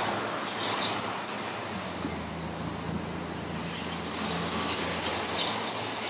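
Steady construction-site background noise: a low machine hum over an even rumble, with a few faint, short clinks.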